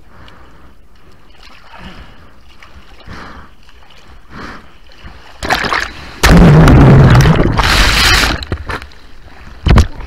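Water lapping quietly around a board-level camera, then a small wave washes over the board and the microphone about halfway through: a loud rush of churning water lasting about three seconds. A short splash follows near the end.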